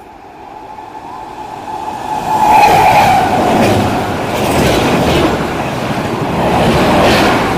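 Indian Railways express train passing at speed: its sound builds over the first two and a half seconds, then holds as a loud, steady rush of wheels and coaches with rapid clatter over the rail joints.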